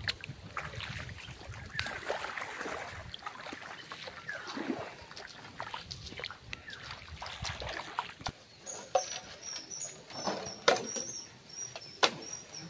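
Outdoor animal calls with scattered clicks and knocks; from about two-thirds of the way in, a short high-pitched call repeats about twice a second.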